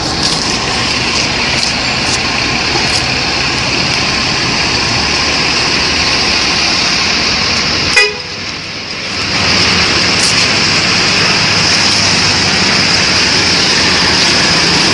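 Steady roadside traffic noise from passing motor vehicles, broken by a sudden click and a brief drop in level about eight seconds in.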